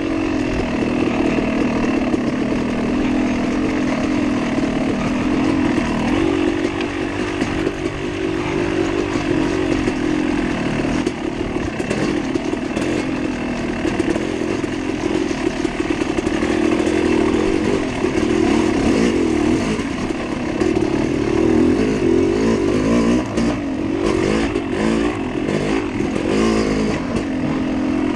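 Dirt bike engine running under load along a rough trail, its revs rising and falling with the throttle. Scattered sharp knocks and clatter come in about halfway through and again in the last few seconds.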